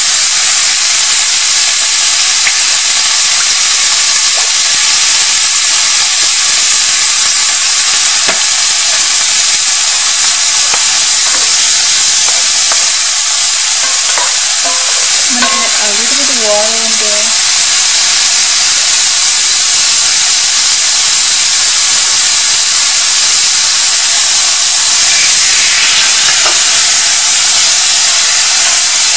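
Sliced chicken, ginger and garlic sizzling steadily in oil in a cast-iron skillet, stirred now and then with a wooden spoon.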